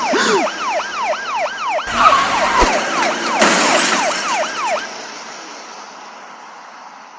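Police car siren in a fast yelp, its pitch sweeping up and down a few times a second, with a thud about two and a half seconds in. The siren stops near five seconds and a fading hiss is left.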